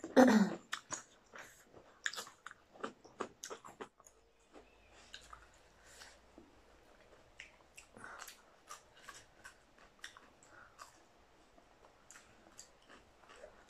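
Close-miked chewing and crunching of crisp raw cucumber slices: many short sharp crunches and wet chews, irregularly spaced. A brief loud vocal sound comes right at the start.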